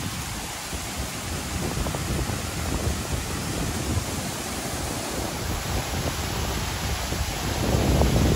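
Steady rush of a waterfall's falling water, with an uneven low rumble underneath, growing a little louder near the end.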